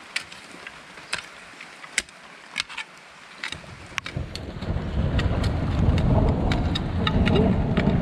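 Rain, with scattered sharp taps in the first half. About halfway through, a loud low rumble swells up and holds.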